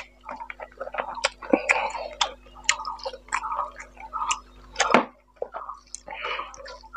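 Close-miked hand-eating sounds: wet chewing and lip smacks, with fingers squelching rice and fish curry gravy together. Gravy is tipped from a glass bowl over the rice about four seconds in, followed by a single sharp knock.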